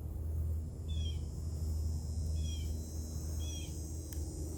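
A bird calling three times, each a short, high, slightly falling note about a second apart, over a steady low rumble and a faint, even insect buzz.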